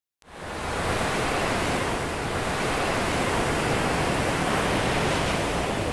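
Steady rushing noise that fades in within the first half second and holds evenly, with no distinct events.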